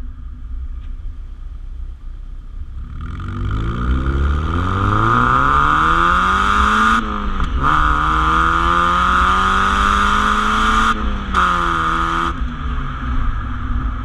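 Mazda Miata's 1.8 L BP-5A four-cylinder engine through a Goodwin Racing RoadsterSport 3 cat-back exhaust, pulling hard under acceleration. After a low cruising rumble, the revs climb from about three seconds in, the pitch drops at a gear change around seven seconds, climbs again more slowly, then the note breaks off near eleven seconds and falls back to a low rumble by about twelve seconds as the driver lifts off.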